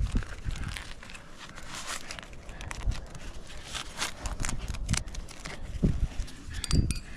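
Irregular clicks, scrapes and knocks of a climber moving on rock, with a few duller thumps.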